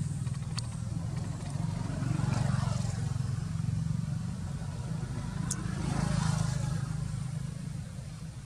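Motor vehicle engines running with a steady low hum, as two vehicles pass by, each swelling and fading, about two and a half and six seconds in. A short sharp click sounds a little after five seconds.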